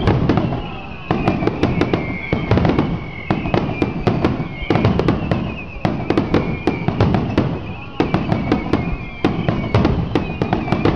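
Aerial fireworks finale: shells bursting in quick clusters of sharp bangs and crackles about every second, over a continuous low rumble, with a high wavering tone running through.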